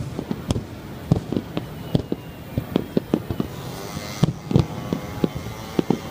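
Aerial fireworks bursting in a dense, irregular run of booms and bangs, two or three a second, as in a display's grand finale.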